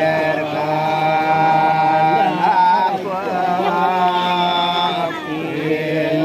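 Balinese ceremonial chanting: a voice sings long held notes that waver and turn in ornaments between them.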